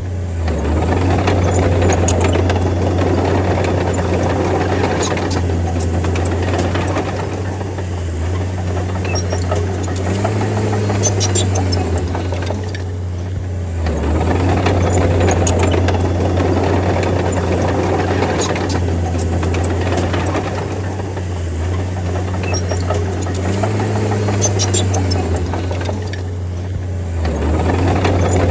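Bulldozer's diesel engine running under load, its note sagging and picking back up several times as the blade pushes, with scattered sharp clicks throughout.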